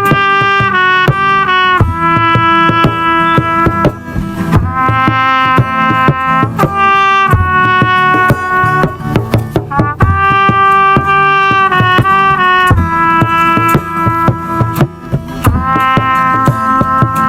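Instrumental worship music: a brass lead, trumpet-like, playing long held notes over drums and percussion.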